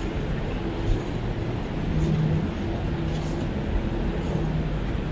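City street traffic: a steady low engine hum under a wash of road noise, with a car driving past.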